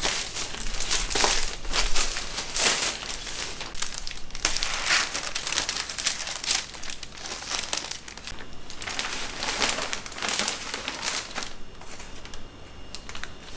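Plastic mailer bag and paper packaging crinkling and rustling in irregular bursts as a parcel of clothes is unwrapped by hand.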